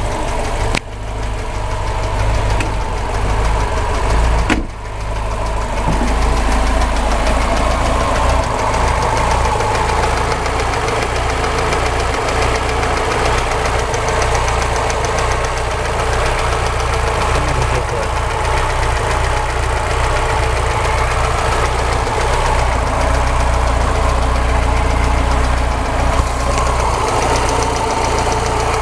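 VAZ 2107 fuel-injected four-cylinder engine idling just after a start, with a knock from around the first spark plug. The knock persists despite a new camshaft, rockers, timing chain and ignition parts, and its cause is unknown to the owner.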